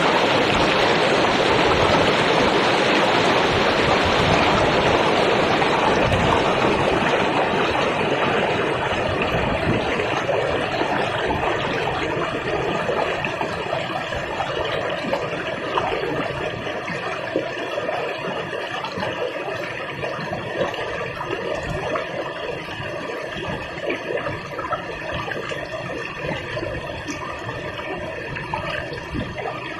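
River water flowing. A steady rush eases about eight seconds in and slowly fades to a quieter flow, broken by many small splashes.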